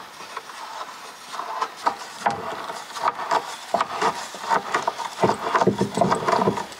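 Irregular knocking, clattering and scraping, several knocks a second, heavier and fuller toward the end.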